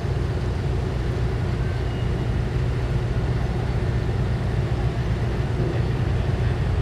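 Training ship's engine running with a steady low hum as the vessel moves slowly into harbour to berth.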